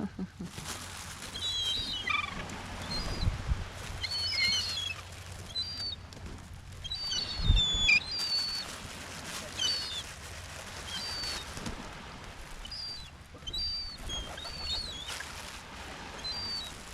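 Small birds chirping repeatedly in short, high, gliding notes over a steady hiss, with a couple of low thumps along the way.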